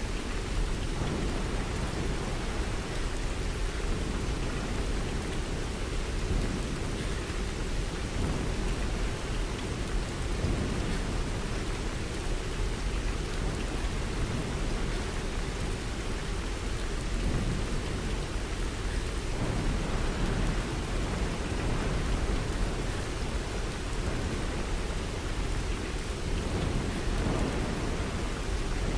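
Steady rain falling, an even hiss with a heavy low rumble underneath that swells a few times.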